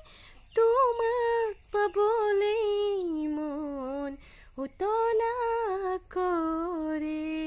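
A woman singing unaccompanied in a hum-like, wordless line. It comes in four phrases of long held notes that slide between pitches and fall at the end of each phrase, with short breath breaks between them.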